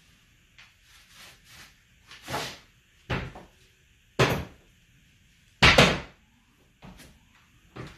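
Irregular knocks and thuds from hardwood flooring being worked into place, about half a dozen spaced unevenly, the loudest a doubled knock about two-thirds of the way through.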